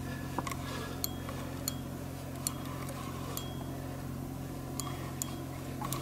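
Scattered sharp, single clicks from a spinning reel while a hooked lake trout is played on a bent rod, over a steady low hum.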